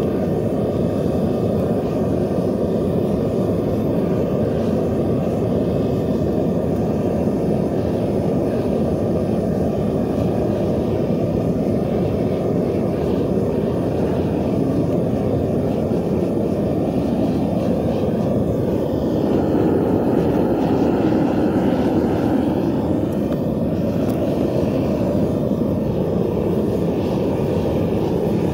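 Propane burner firing a homemade bucket foundry furnace: a loud, steady rushing roar of gas flame. It swells slightly a little past halfway.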